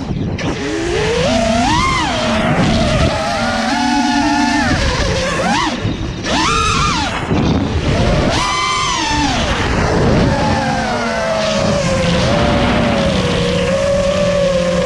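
A 5-inch FPV racing quadcopter's brushless motors and propellers whining, the pitch sweeping sharply up and down as the throttle is punched and cut. There are several quick swoops in the first half, then a longer, steadier whine that slowly sinks, over a constant low rushing noise.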